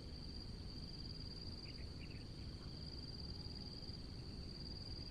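Insects trilling steadily in one continuous high tone, over a low rumble. A few faint short chirps come about two seconds in.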